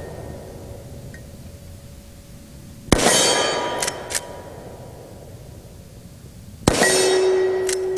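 Two shots from a lever-action rifle, a few seconds apart. Each shot is followed by a ringing tone that slowly fades and by two sharp metallic clicks as the lever is worked open and shut to chamber the next round.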